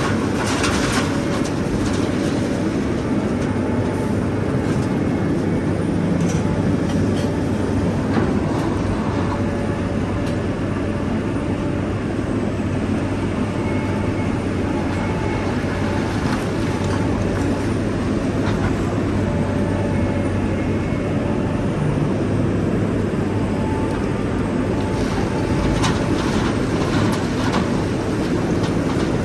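Large excavator's diesel engine running steadily with a low hum, with occasional metallic clicks and knocks from the machine working.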